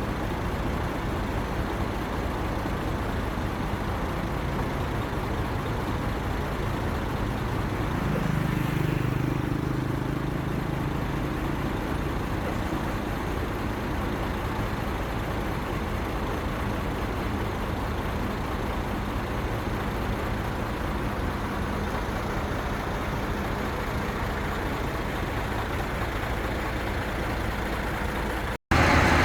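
Steady road traffic noise from heavy vehicles, with a low engine sound swelling briefly about eight seconds in and fading a few seconds later. The sound drops out for a moment near the end.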